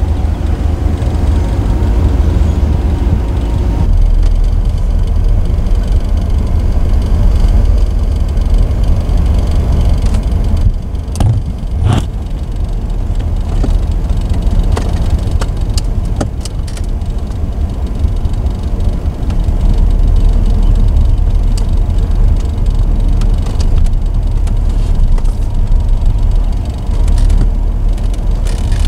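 The rebuilt 1994 Chevrolet Camaro Z28's 5.7-litre LT1 V8 running, heard from inside the cabin as a steady low rumble. A few sharp knocks come about eleven and twelve seconds in.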